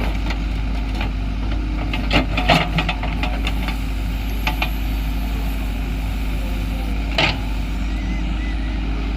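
JCB 3DX backhoe loader's diesel engine running steadily. A cluster of sharp knocks comes about two to three seconds in, and another single knock about seven seconds in.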